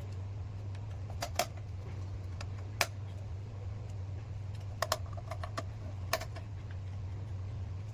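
Scattered sharp clicks and taps of small plastic and metal parts being handled while the Audio Array AI04 audio interface's casing is screwed back together, over a steady low hum.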